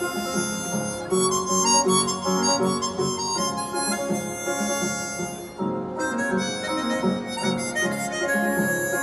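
Harmonica playing a melody with upright piano accompaniment, the harmonica holding one long note near the end.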